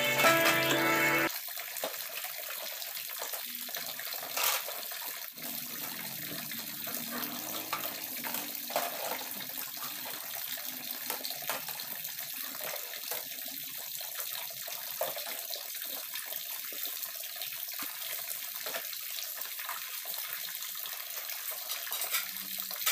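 Kitchen tap running into a sink, a steady rush of water with occasional small knocks and splashes. Background music stops about a second in.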